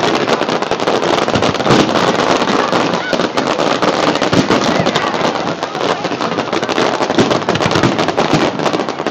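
Aerial fireworks bursting in a dense, continuous barrage of crackling and popping, with people's voices mixed in.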